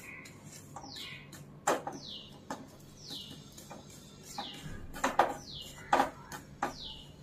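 A metal spatula scraping and knocking against a kadhai as semolina is stirred and roasted, in a few sharp knocks. Behind it a bird repeats a short, high, falling chirp about once a second.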